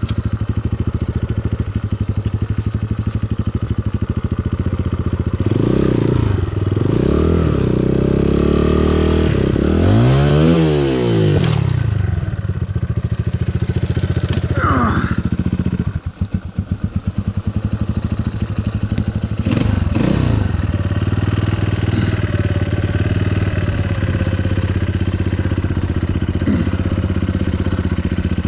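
SSR SR189 dirt bike's air-cooled single-cylinder four-stroke engine running, revved up and back down several times a few seconds in and once more past the middle, settling back to a steady low speed in between.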